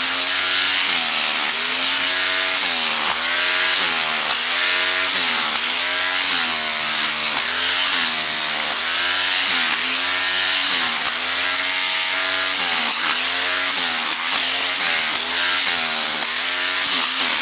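Corded DeWalt hammer drill running in hammer-only mode with a chisel bit, chipping into rock at the bottom of a post hole. The motor's pitch sags and recovers about once a second.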